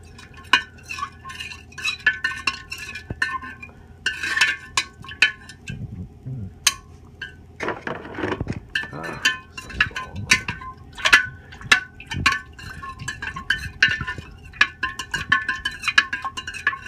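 A spoon stirring water in a glass Big Mouth Bubbler fermenter, clinking and knocking against the glass walls over and over at an uneven pace, the glass ringing briefly after each tap, with a short stretch of scraping about halfway through.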